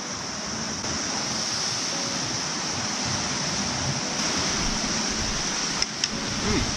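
Ocean surf breaking and washing against shoreline rocks: a steady rush of water, with a couple of faint clicks near the end.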